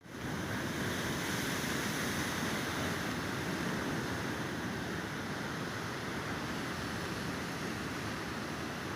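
Sea surf: a steady rushing wash of waves with no distinct breaks, fading in at the very start.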